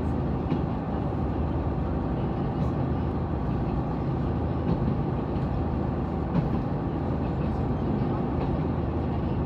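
A KiHa 187 series diesel railcar running at speed, heard from inside the cabin: a steady diesel engine drone over the rumble of wheels on rail, with a few light knocks.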